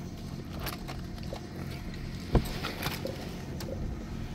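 Stone Horse sailboat under sail: a steady low rush of wind and water along the hull, with scattered small clicks and one sharp knock about two seconds in.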